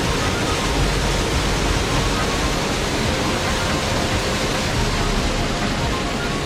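Waterfall of a spring-fed stream, water falling and rushing in a steady, unbroken roar of noise.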